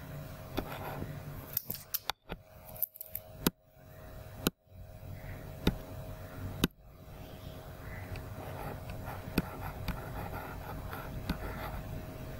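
Scattered sharp clicks of a computer mouse, a quick cluster about two seconds in, then single clicks spread a second or more apart, over a faint steady electrical hum.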